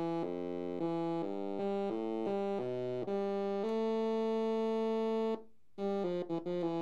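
Arturia MicroBrute SE analog monosynth played through a small powered speaker, one note at a time. A run of short notes, each about a third of a second, leads into one note held for nearly two seconds; after a brief gap come a few quick short notes near the end.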